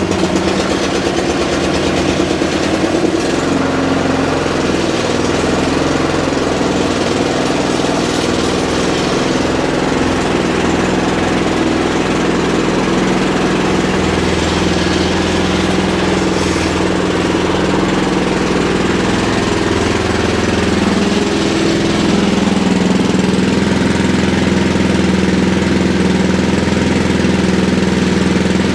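Mountfield SV150 single-cylinder four-stroke engine on a Mountfield 474 rotary lawn mower running steadily after a pull start, getting a little louder about two-thirds of the way through.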